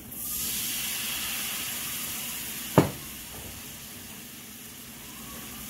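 White wine hitting a hot skillet of butter, onions and garlic, sizzling and hissing as it deglazes the pan, loudest for the first couple of seconds and then easing off. A single sharp knock sounds just under three seconds in.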